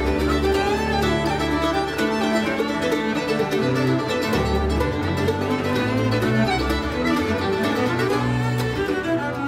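Background music played on string instruments: a fiddle over plucked strings, with steady bass notes changing about once a second.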